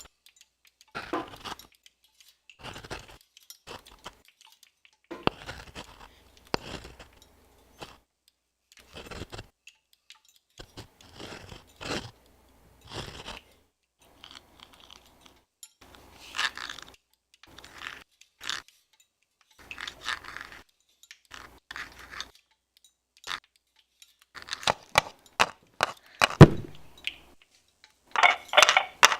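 A run of short, irregular crunches, clinks and scrapes of objects being handled to make sound effects, with pauses between them; the sounds come thicker near the end, with one heavier thump among them.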